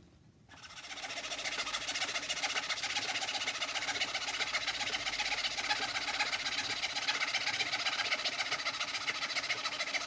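Old treadle fretsaw running, its blade moving up and down in rapid, even strokes as it cuts a pattern through two taped-together sheets of thin pear-wood and sycamore plywood. The saw starts about half a second in and comes up to speed over the next second.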